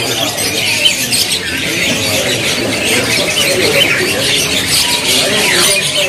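Many caged canaries chirping at once, short high calls overlapping.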